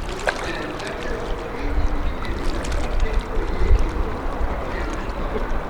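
Distant outboard engines of racing hydroplanes running on the course, heard as a faint wavering drone, with strong wind buffeting the microphone as a fluctuating low rumble.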